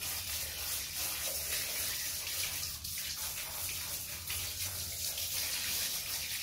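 Water running steadily from a tap and splashing, as a motherboard is washed under it, with a low steady hum underneath.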